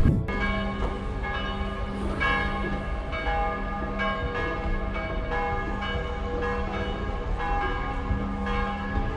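Church bells pealing, several bells struck in quick overlapping succession, each note ringing on, over a low rumble of outdoor background noise.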